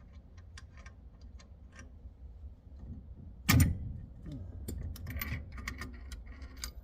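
Hand work on a truck's steering column: a run of light, fairly even clicks, one loud knock about three and a half seconds in, then a busier cluster of clicks near the end.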